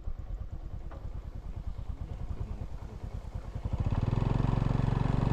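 A small engine runs with a rapid, even low chugging. About four seconds in it grows louder and steadier as it revs up.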